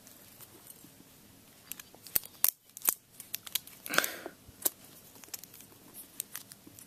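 Light, sharp clicks and snaps from a homemade plastic-fork and rubber-band switchblade being handled, with a brief rustle about four seconds in.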